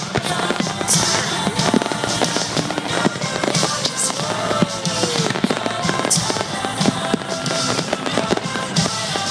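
Aerial fireworks bursting in a rapid, continuous volley of bangs and crackles, with music playing underneath.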